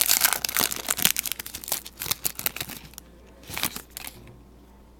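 Crinkling plastic wrapping being torn off a trading-card box or pack, a dense crackle for about three seconds with one more short rustle a little later.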